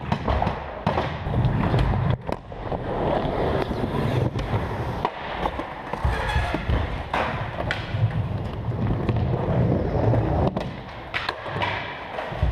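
Skateboard wheels rolling over a smooth skatepark floor, a steady low rumble broken by several sharp clacks of the board hitting the ground.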